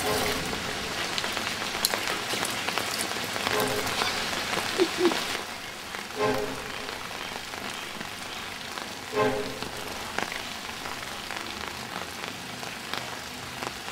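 Steady rain falling on leaves and garden surfaces. For about the first five seconds a brighter, louder hiss of water runs from a tank tap into a plastic watering can.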